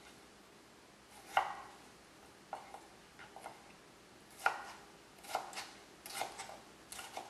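Kitchen knife slicing a Roma tomato on a plastic cutting board, each cut ending in a light tap of the blade on the board, in a series of cuts at an uneven pace.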